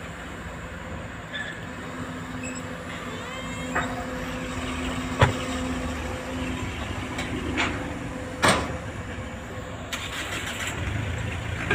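Case CX210B excavator's diesel engine running steadily while the bucket digs soil, with a few sharp knocks, the loudest about five seconds in and another about eight and a half seconds in.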